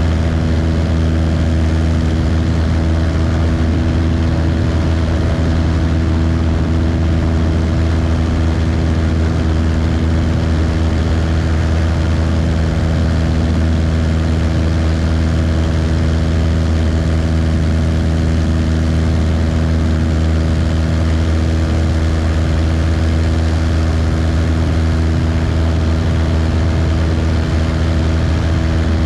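Cessna 172's piston engine and propeller running steadily in flight: a constant drone with no change in pitch.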